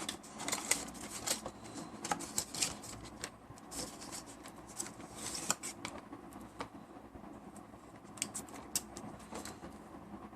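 Hands handling a phone charger and its packaging: irregular rustling, crinkling and small sharp clicks throughout.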